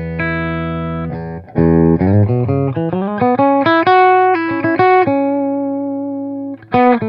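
Electric guitar played through an Oldfield 6715 all-tube amp with two EL84 power tubes and an EF86 preamp tube: a held low chord, then from about two seconds in a quick climbing run of single notes, ending on a long held note.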